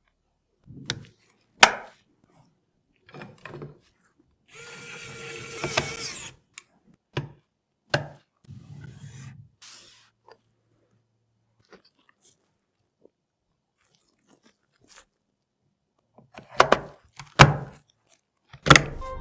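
PC parts being handled during assembly: scattered sharp clicks and knocks, with about two seconds of continuous scraping noise some four and a half seconds in, and a quick run of loud clicks near the end.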